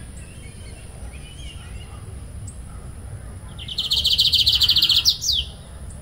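Lined seedeater, a young male still in brown plumage, singing one rapid trill about a second and a half long, ending in two quick sliding notes.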